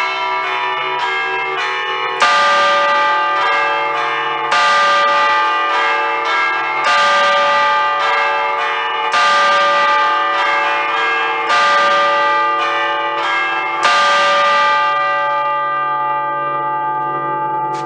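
A five-bell Ambrosian church peal in D, cast by Giorgio Pruneri in 1875, chimed by hand with small ropes on the clappers while the bells hang still, playing a festive allegrezza. A loud strike comes about every two seconds with lighter strikes between. The strikes stop a little before the end and the bells hum on, dying away.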